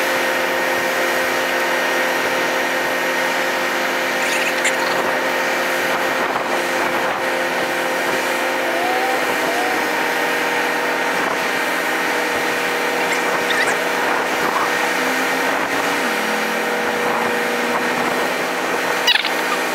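Wheel loader's diesel engine running steadily under load as its boom lifts the overturned plane; the engine note shifts down in pitch about a third of the way in and again near the end.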